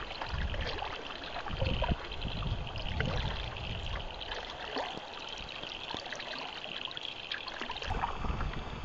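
Water trickling and dripping off canoe paddles as they dip and pull through the water, with irregular low rumbles now and then.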